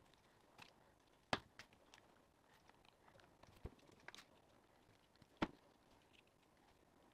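A few sharp clicks and taps against near silence, two of them louder, about a second and a half in and about five and a half seconds in: small parts of a steering wheel being handled and fitted back together during reassembly.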